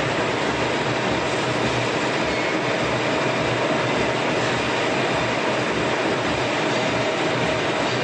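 Veneer peeling line running steadily: a spindle peeling lathe cutting a log into veneer, with its motors and roller conveyors, giving a continuous mechanical noise with a faint hum.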